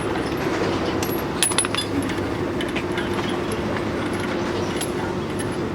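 Small metal pieces clinking and tapping, a quick cluster about a second and a half in and lighter taps after, over a steady mechanical hum.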